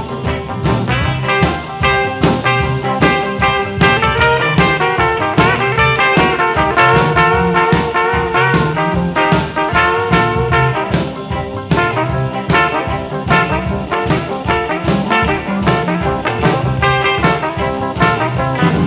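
Background music: an instrumental break in an upbeat rock-and-roll song, with brass and a steady beat.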